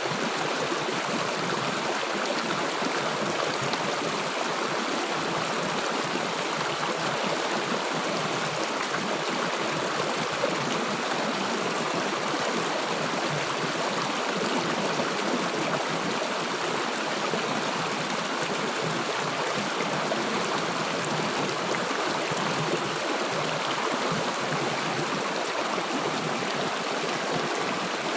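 River water rushing and gurgling over stones, a steady, even flow.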